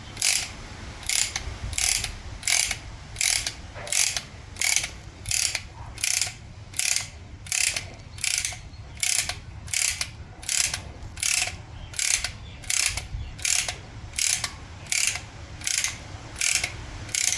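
Ratchet clicking in short, even strokes, a little more than one a second, as a brake caliper press is worked to push the front brake caliper piston back into its bore.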